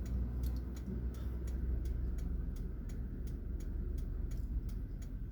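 Car's turn-signal indicator ticking steadily, about two to three ticks a second, over the low rumble of the engine and road inside the cabin.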